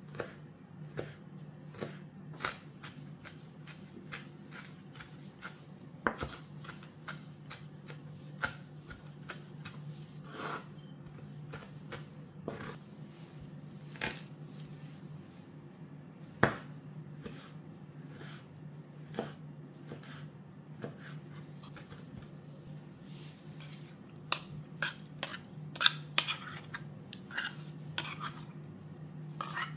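Kitchen food-prep sounds: kitchen utensils and dishes knocking and clinking in scattered taps, busier near the end, over a steady low hum.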